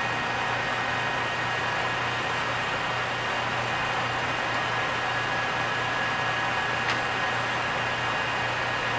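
Engine lathe running steadily with its spindle at about 1000 RPM: a constant motor hum under a steady high gear whine and hiss. One short click about seven seconds in.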